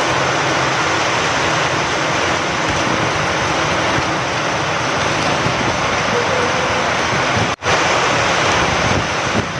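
Steady rain falling with wind, a dense even hiss. The sound cuts out for a split second about seven and a half seconds in, then carries on unchanged.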